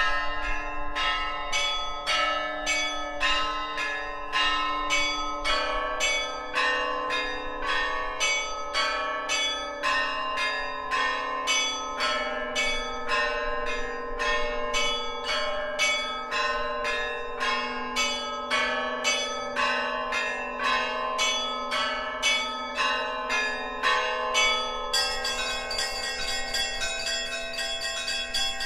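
Orthodox church bells of the Kyiv-Pechersk Lavra belfry ringing. Smaller bells are struck in a quick, steady rhythm of about two or three strokes a second over the lingering hum of a larger bell. Near the end the high bells run together into a denser peal.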